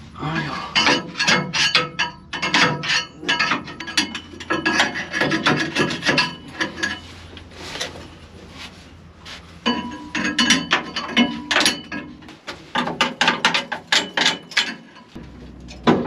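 Irregular knocking, scraping and rattling as packed chaff and dirt are cleared out by hand around a combine's chopper knives, over a low steady hum.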